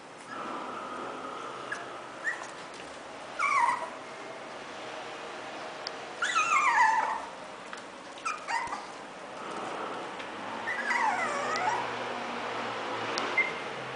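Pomeranian puppy whining to be fed: about four high, mostly falling whimpers, the loudest and longest about halfway through, one near the end dipping and rising again.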